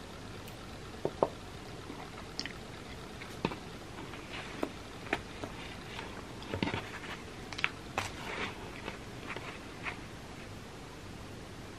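Close-miked chewing of pizza: irregular soft crunches, mouth clicks and smacks, with two sharp clicks about a second in and a busier run of crunching past the middle.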